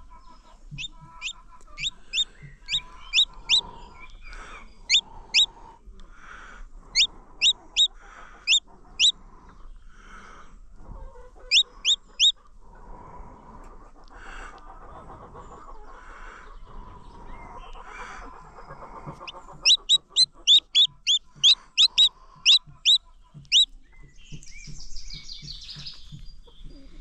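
A newly hatched chick peeping loudly in runs of short, high, falling peeps, a dense run near the end, with softer low clucking sounds in between.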